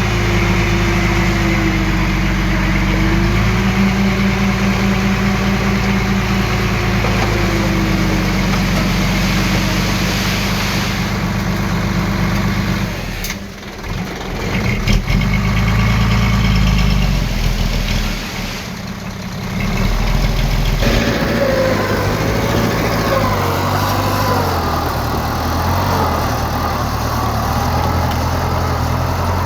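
Diesel engine of heavy earthmoving machinery running steadily with a deep hum. The sound drops off briefly twice about halfway through, with a sharp knock between the drops.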